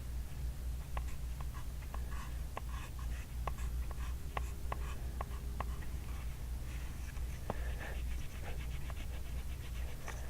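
Pencil writing on a workbook page: short scratchy strokes and light taps of the lead on the paper, over a steady low hum.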